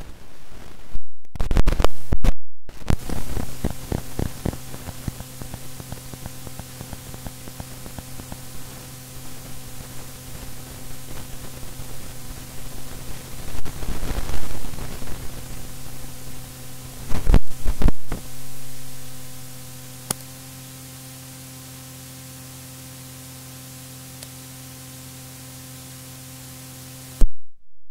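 Static hiss over a steady electrical hum, with dense crackling and several loud, harsh bursts in the first half. From about two-thirds of the way in, only the even hiss and hum remain, with a single click. A brief loud burst comes near the end, and then it cuts off suddenly.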